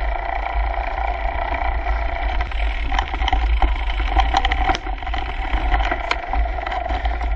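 Mountain bike rolling fast down a loose stony dirt trail, heard from a handlebar-mounted camera: wind rumble and steady tyre noise, with the bike rattling and stones knocking from about three seconds in.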